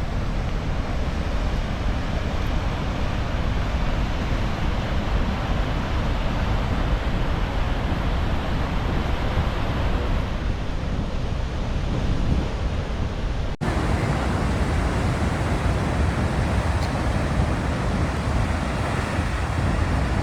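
Steady roar of Niagara Falls' rushing water, with wind buffeting the microphone. The sound drops out for an instant once, a little past halfway.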